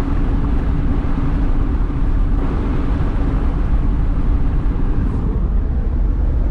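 Steady road and engine rumble of a moving car, heard from inside. A low hum runs under it and drops away about five seconds in.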